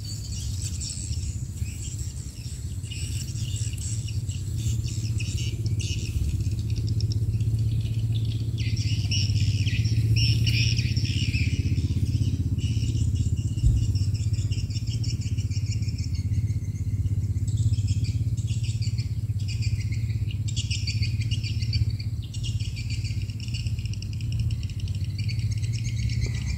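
A steady low motor drone, like an engine running at a distance, with insects and birds chirping over it.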